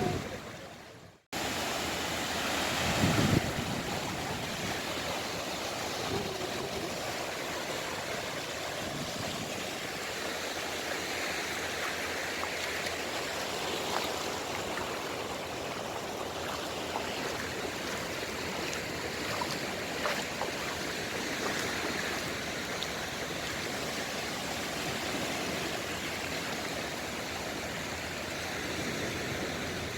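Sea waves breaking and washing on the shore, a steady rush of surf. The sound cuts out for a moment about a second in, then the surf returns with a louder swell.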